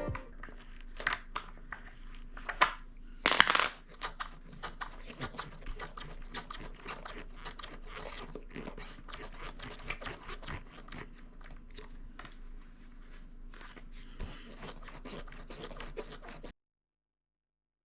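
Surfskate being worked on pavement: rolling and scraping noise with irregular clicks and creaks from the board and truck, and no steady squeal standing out. The sound cuts off abruptly near the end.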